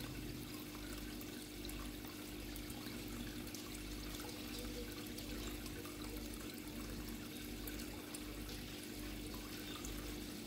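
Water running and trickling steadily into a koi pond, with a steady low hum underneath.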